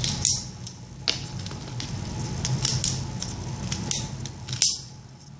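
Light plastic clicks and taps from a handheld Lego butterfly knife, about half a dozen at uneven intervals, over a steady low hum.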